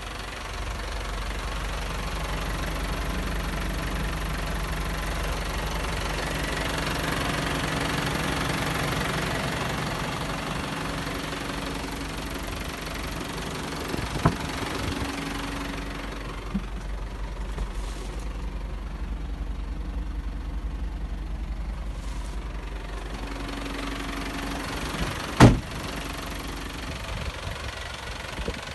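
Isuzu truck's 4K diesel engine idling steadily with a low, even hum. A small knock comes about halfway through, and a louder sharp knock comes near the end.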